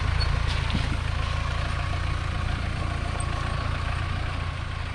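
Mahindra Thar's engine running steadily, a low rumble.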